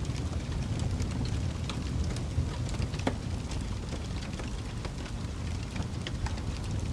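Wood fire burning with a steady low rumble and scattered pops and snaps, one sharper snap about three seconds in.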